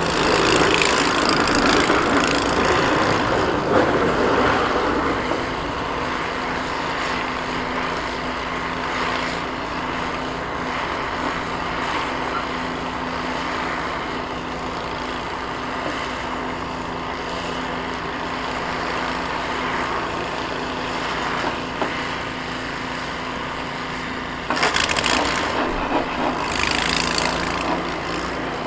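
Ram 3500 pickup with a Fisher snow plow working a snowy street: a steady engine hum under the scrape of the lowered blade pushing snow over the pavement, louder in the first few seconds. Near the end, two sudden spells of louder, harsher scraping noise.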